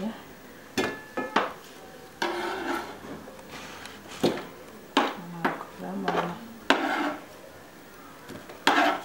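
Kitchen knife slicing onions into rings on a plastic cutting board: a handful of sharp, irregularly spaced knocks as the blade hits the board, with softer cutting and scraping between them.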